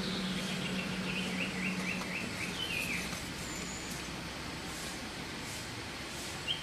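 Small birds chirping: a quick run of about seven short, falling notes starting about a second in, then scattered calls, over a low steady hum that fades out about three seconds in.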